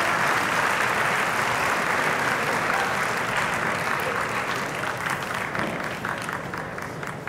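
Arena audience applauding, the clapping slowly fading.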